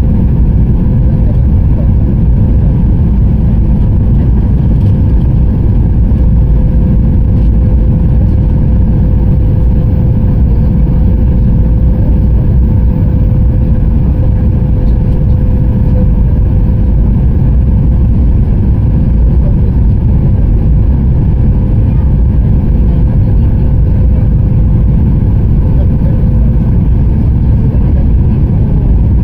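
Steady, loud cabin noise of a jet airliner in cruise, heard from a seat beside the wing: the drone of the turbofan engine and rushing air, with a thin steady tone running through it.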